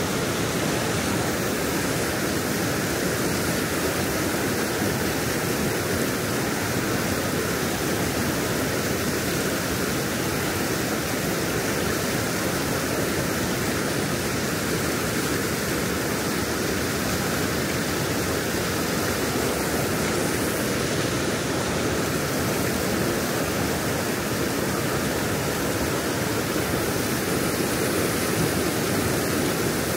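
Floodwater rushing steadily over a dam embankment, a constant even roar of pouring water.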